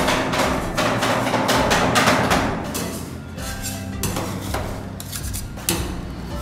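Two metal spatulas chopping and scraping ice cream mix on the frozen steel plate of a rolled (pan) ice cream counter, in rapid irregular clacks of metal on metal, over background music.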